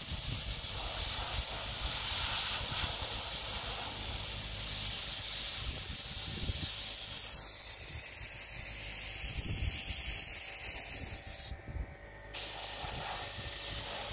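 Gravity-feed air paint spray gun hissing steadily as it sprays paint. The hiss stops for under a second near the end, then starts again.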